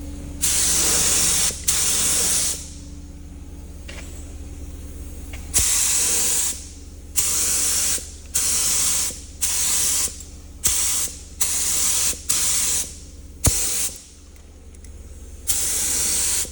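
Compressed-air paint spray gun spraying paint in short bursts of about ten trigger pulls. Each pull gives a loud hiss lasting half a second to a second, with pauses between, over a steady low hum.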